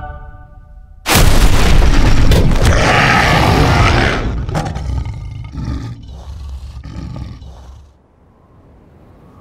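A loud, deep, rough bear-like roar from a half-man, half-bear creature. It starts suddenly about a second in, holds for about three seconds, then dies away in a few ragged pulses.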